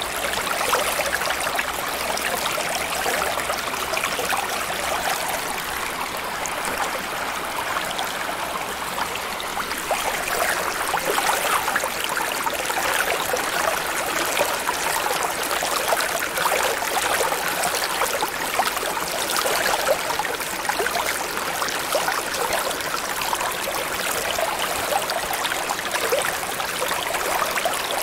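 Running water flowing steadily, an even dense wash with hardly any low rumble.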